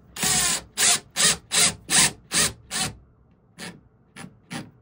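Ryobi ONE+ HP brushless cordless driver driving a lag bolt through a mounting bracket into the wall, run in short trigger bursts. A longer burst at the start is followed by about five short bursts roughly twice a second, then three fainter, shorter ones near the end.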